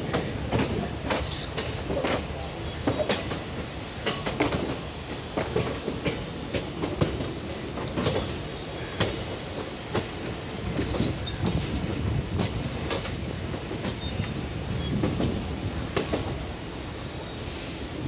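Passenger train running through station-yard points, heard from the coach doorway: steady rumble with the wheels clattering over rail joints and crossings in irregular clicks, and a brief high wheel squeal about eleven seconds in.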